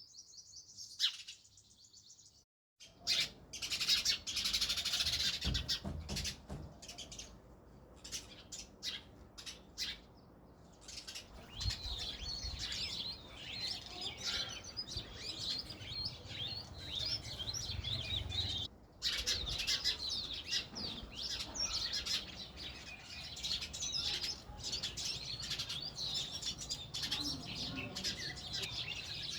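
House sparrows chirping: a dense, continuous chatter of short calls that cuts out briefly twice.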